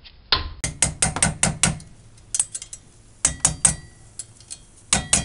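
Plastic mallet striking the handle of a combination wrench to tighten a brake caliper bracket bolt. The blows come as quick runs of sharp taps, about six in a row at the start and then shorter runs, and the steel wrench rings faintly after some of them.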